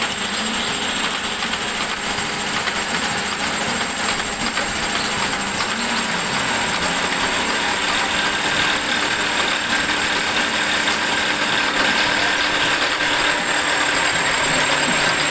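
Milling machine running and cutting steel gear teeth with an HSS tool bit: a steady mechanical cutting noise with a thin, steady high-pitched tone, growing slightly louder in the second half.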